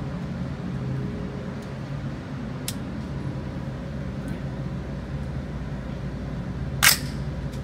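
Steady low hum of an indoor shooting range, broken by a faint gunshot about three seconds in and a single loud, sharp gunshot near the end.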